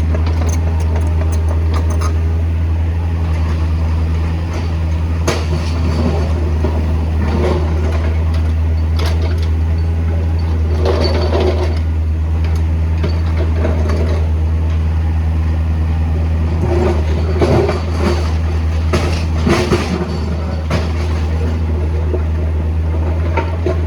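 Backhoe's diesel engine running steadily under work, with short louder noises coming and going over it, most around the middle and in the last third.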